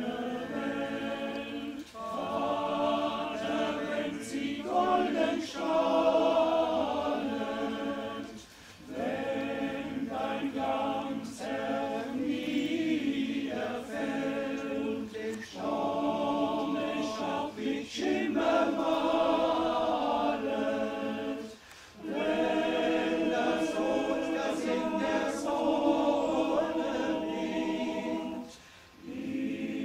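Choir singing a cappella in sustained chords, phrase by phrase, with brief breaks between phrases.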